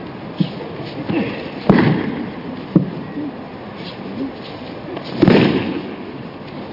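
Bodies landing on the training mat as aikido throws end in breakfalls: a few sharp slaps and thuds, the loudest a longer crash about five seconds in.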